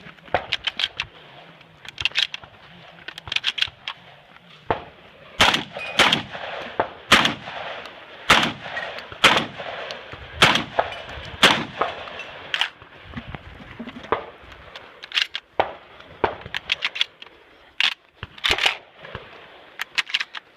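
Shotgun firing a string of shots about a second apart during a timed match stage, with lighter metallic clanks and clicks between the shots.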